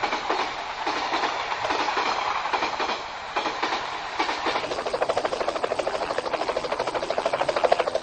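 A steady rushing, rattling noise; about halfway through a fast, even clicking rhythm sets in and grows louder toward the end.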